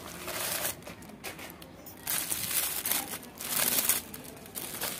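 Plastic packaging crinkling in irregular bursts: a plastic courier mailer and the clear plastic wrap around a pair of slides being pulled open and handled.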